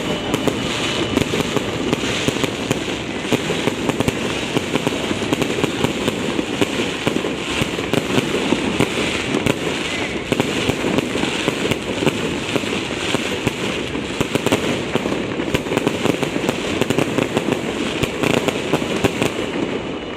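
Fireworks display going off: a dense, continuous run of bangs and crackling without pause.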